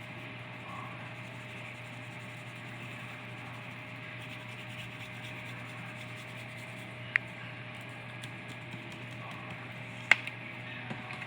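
Hands rubbing seasoning into raw ribs over a steady hum and hiss. Two sharp clicks come about seven and ten seconds in, the second louder.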